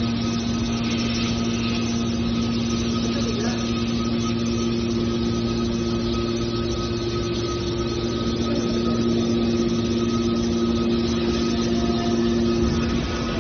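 Hydraulic metal shear baler's power unit running steadily: a constant motor-and-pump hum with a couple of held tones, a second, higher tone joining about four seconds in.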